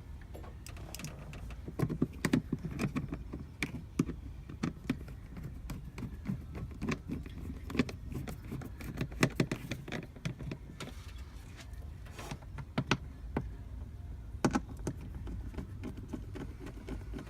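Irregular clicks, taps and light knocks of car parts and tools being handled under the hood, over a low steady rumble.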